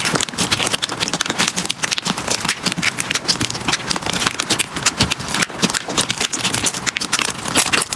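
Slime being squeezed and pressed by hand, making rapid, irregular sticky clicks and pops.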